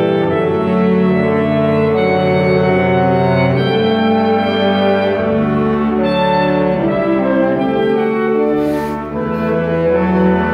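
Saxophone ensemble playing held chords in several parts, the notes changing every second or so, with a short dip in loudness near the end.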